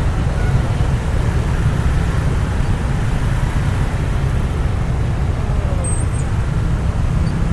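Steady low rumble of slow, jammed road traffic: vehicles idling and creeping along.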